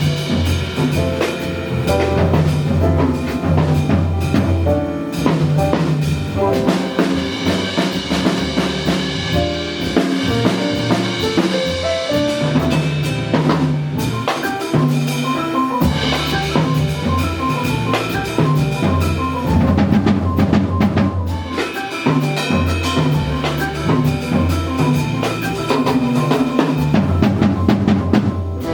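Live jazz with the drum kit out front: snare, rimshots, bass drum and cymbals played busily over a moving bass line and some piano or guitar chords.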